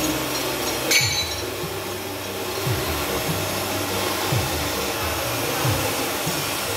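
Steady rushing noise, with one sharp metallic clink about a second in.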